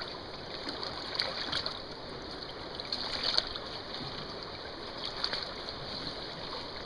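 Steady rush of a shallow creek, with a few faint scrapes and clicks from cleaning out a gutted steelhead.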